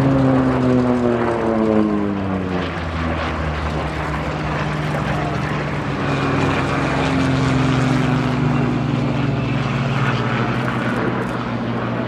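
Hawker Sea Fury's radial engine and propeller as the fighter flies past. The engine note drops sharply in pitch over the first few seconds as it passes, then settles into a steadier drone that sinks slowly as it flies away.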